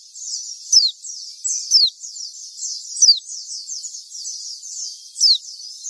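A flock of white-eyes chattering together in thin, high, overlapping notes, with a louder sharp falling whistle call about once a second.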